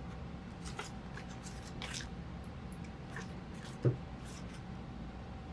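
Scissors snipping paper in short, irregular cuts, with light paper handling. A thump a little under four seconds in is the loudest sound.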